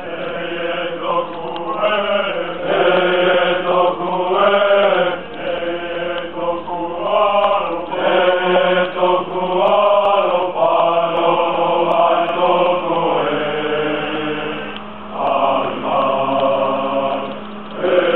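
A group of soldiers singing a Polynesian song together in unison, chant-like, in long held phrases with brief breaks between them.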